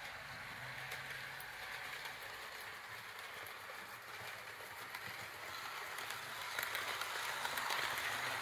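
Tenshodo 103 series model electric train running along the layout track: a steady hiss of wheels and motor with faint scattered clicks, slowly getting louder toward the end.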